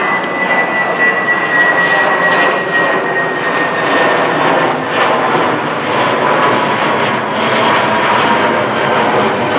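Jet engines of a British Airways Airbus A320-family twin-jet at climb thrust after take-off. The sound is a loud, steady rush of noise carrying a high whine that slowly falls in pitch as the plane passes overhead.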